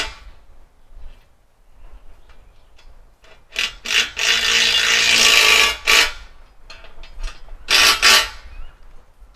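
Handheld power driver running in bursts, tightening the bolts of a sawmill track's end stops: a short burst about three and a half seconds in, a longer one of nearly two seconds, then another short one near the end.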